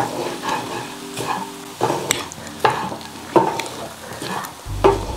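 Wooden spatula stirring and scraping a dry shark-and-coconut fry around a stainless steel pan, in strokes about every 0.7 seconds, with a light sizzle from the pan over low heat.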